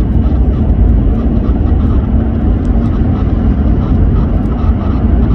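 Steady low rumble of road and engine noise inside the cabin of a moving 2002 Toyota Highlander.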